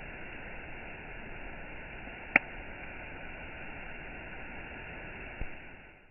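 Campfire burning with a steady hiss and one sharp, loud pop a little over two seconds in, then a softer pop near the end before the sound fades out.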